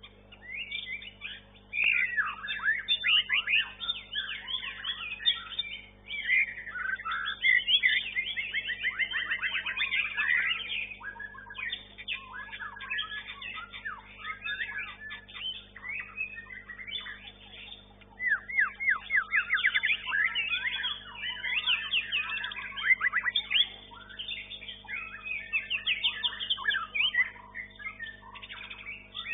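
White-rumped shama (murai batu) singing in contest: a long, varied stream of rapid whistles, trills and chattering phrases with a few short breaks. The singing is the sustained performance judged in murai batu contests. A steady low hum runs underneath.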